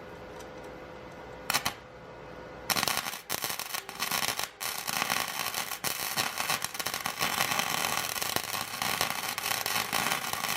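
Welder arc crackling steadily, starting about three seconds in and running for around eight seconds, as weld is added to a nut on a broken exhaust manifold stud. The point is to build up heat in the stud so it will back out. A short click comes just before.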